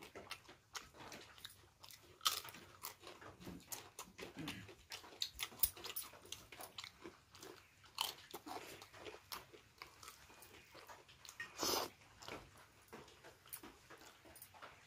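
A person eating close to the microphone: irregular chewing, biting and mouth clicks with small crunches of crisp food. A longer, louder crunching noise comes about three quarters of the way through.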